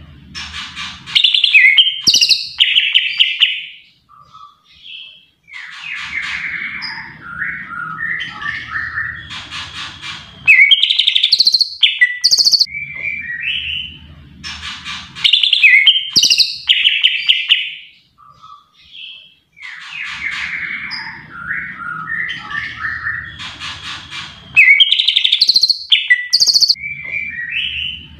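Green leafbird (cucak ijo) singing a rapid, varied song of chirps, trills and whistled glides in loud bursts of several seconds, with brief pauses between them. The same run of phrases comes round again about every 14 seconds. A low hum sits under some passages.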